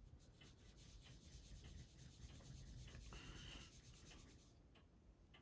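Faint scratching and ticking of a fine wire stirring white-tinted UV resin on a plastic surface, with a brief faint squeak a little after three seconds in.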